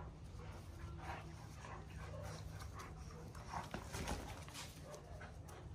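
Newfoundland and Cavalier King Charles spaniel play-fighting over a toy, with faint, short dog sounds coming again and again. A louder brief scuffle comes about four seconds in.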